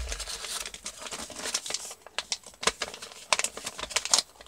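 A sheet of paper being folded and creased by hand while making a paper airplane, a run of irregular sharp crinkles and crackles as a flap is folded over and pressed down.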